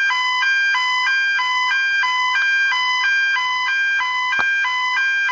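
Electronic fire alarm sounder going off, a loud two-tone warble that alternates between a lower and a higher pitch, each held just under half a second, repeating without a break.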